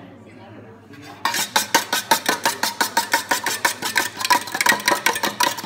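A fork beating egg in a small stainless steel pan, the tines clicking fast and evenly against the metal, about eight strokes a second, starting about a second in.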